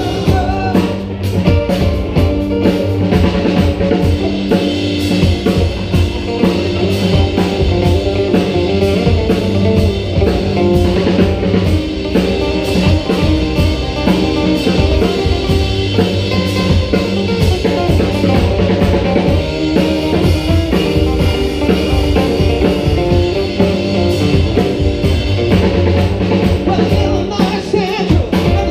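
Live band playing a rock song on keyboard, guitar and drum kit, with a lead vocal over it.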